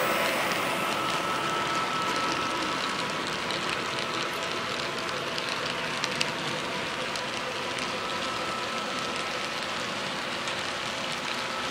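HO-scale model freight cars rolling past on the track close by: a steady rattling hiss of small wheels on rails, sprinkled with tiny clicks. It is louder as the locomotives pass and settles to an even level after a couple of seconds.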